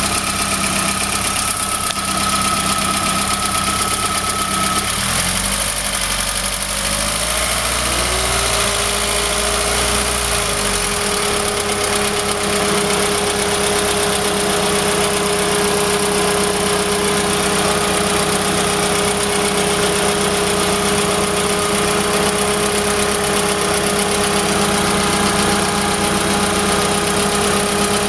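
Volkswagen Golf GTI's 1.8-litre four-cylinder engine idling. Its note shifts between about five and eleven seconds in, then holds steady.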